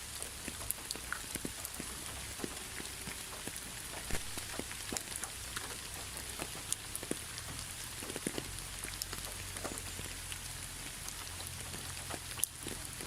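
Steady rain falling, an even hiss with many scattered drops ticking irregularly on a hard surface, over a faint low rumble.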